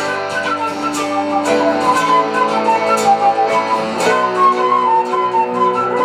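Concert flute playing a melodic solo line of held and stepping notes over guitar accompaniment, in a live rock band.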